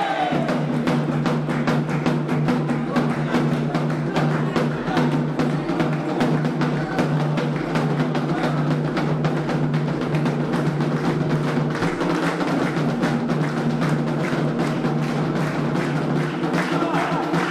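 Candomblé atabaque hand drums playing a fast, steady ritual rhythm of dense strokes, with a steady low sustained sound beneath.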